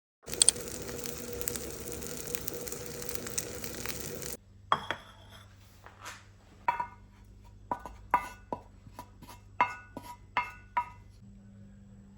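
A steady hiss with faint crackling for about four seconds, then stops. It is followed by about a dozen sharp, ringing clinks of dishware being handled.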